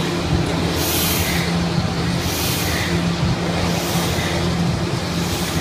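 C-frame eccentric power press running: a steady low motor hum, with a hiss of air that swells and fades a little over once a second.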